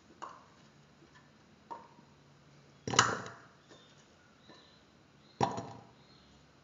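Pieces of raw chayote dropping onto the bare bottom of a stainless steel pressure cooker: a handful of separate knocks with a short metallic ring, the loudest about three seconds in.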